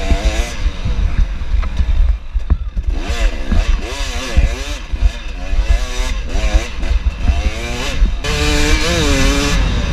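Dirt bike engine revving up and falling off again and again while being ridden.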